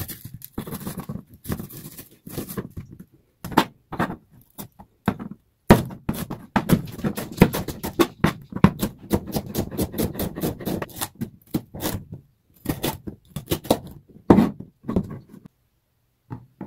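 Chef's knife chopping a red bell pepper on a cutting board: a string of sharp knocks as the blade strikes the board, coming in a quick, even run through the middle, then stopping briefly near the end.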